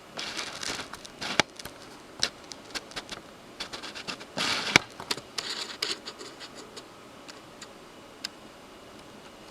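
Handling noise as something is moved closer: a few brief scrapes and scattered sharp clicks, thinning out in the last few seconds.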